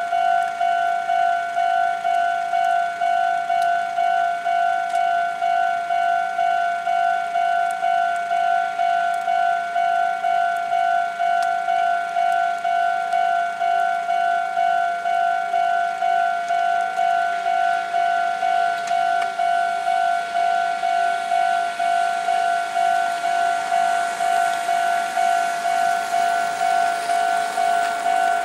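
Japanese level-crossing warning bell, the electronic 'kan-kan' alarm, ringing in an even rhythm about twice a second: the crossing is closed for an approaching train. A rushing noise rises in the last few seconds.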